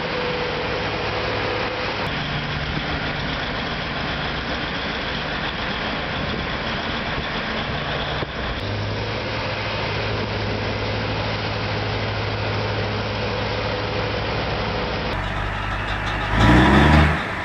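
Large mining dump truck's diesel engine running steadily with a low hum. Near the end it surges louder twice, rising in pitch.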